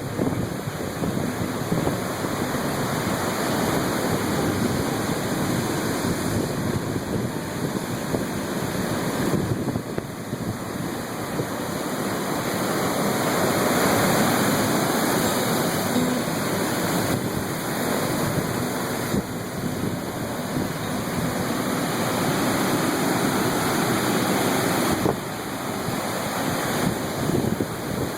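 Ocean surf breaking and washing ashore in a steady rush, with wind buffeting the microphone. The wash swells louder about halfway through.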